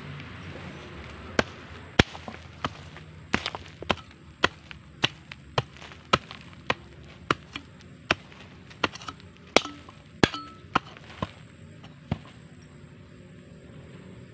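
Hoe chopping into soil in a steady run of sharp strokes, a little under two a second, stopping about twelve seconds in.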